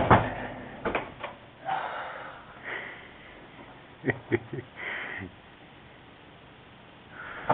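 Faint scattered knocks: two about a second in and a quick run of three a little past the middle, with soft sniffing between them.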